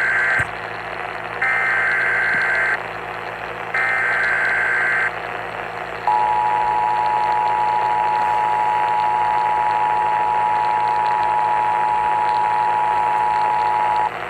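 Emergency Alert System tones received over AM radio, signalling the start of a severe thunderstorm warning: the end of one burst and then two more bursts of SAME header data, each about a second and a half long with short gaps between them. About six seconds in, the two-tone attention signal starts and sounds steadily for about eight seconds, all over a hiss of radio static.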